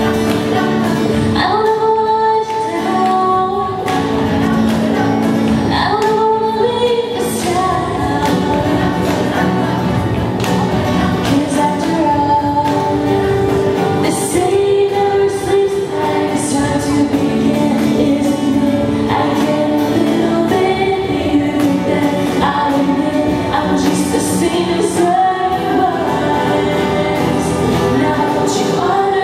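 All-female a cappella group singing: the group holds sustained chords while a lead voice on a microphone carries the melody.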